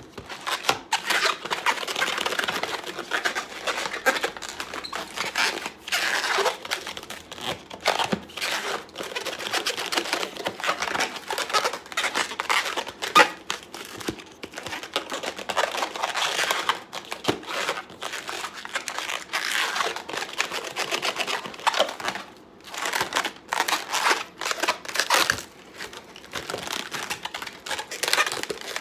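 Inflated latex modelling balloons squeaking and rubbing against each other and the hands as they are twisted and bent into shape, an irregular run of short squeaks and rubs.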